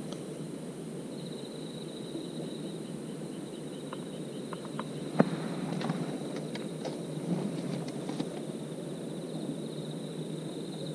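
Crickets trilling in a steady high pulse over a steady low rumbling noise, with a few sharp clicks and one louder knock about halfway through.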